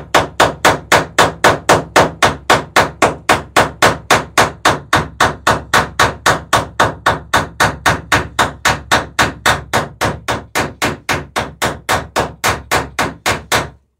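Hammer peening over rivets in a wooden dory's planking: a steady, rapid run of sharp metallic blows, about three to four a second, that stops just before the end.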